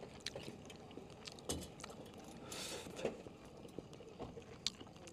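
Faint clicks and scrapes of a utensil against a self-heating rice container during eating, with a brief rustle about two and a half seconds in.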